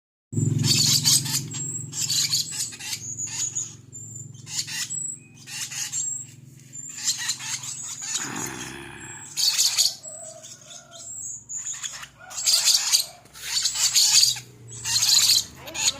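Lovebird chattering in repeated shrill, high-pitched bursts with short pauses between them.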